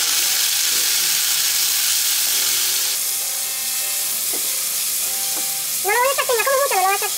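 Chopped onion frying in hot oil in a pot, sizzling steadily while a wooden spoon stirs it. The sizzle eases a little about three seconds in. A high, wavering voice-like sound comes in near the end.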